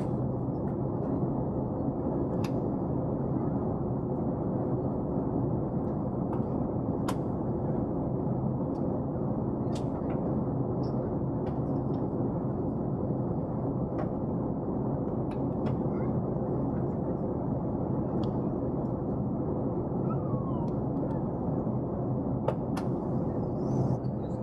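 Steady in-flight cabin drone of an Airbus A380, engine and airflow noise heard from inside the passenger cabin, with a few faint scattered clicks.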